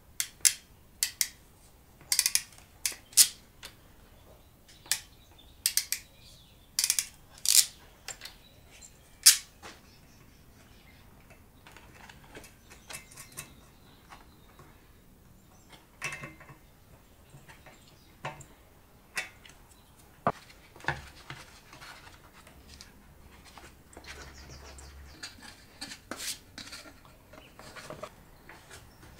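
Sharp small metallic clicks and clinks, a dozen or so in the first ten seconds, then quieter scattered clicks and rustling: hand tools and terminal hardware being worked while wiring an electric motor's terminal box.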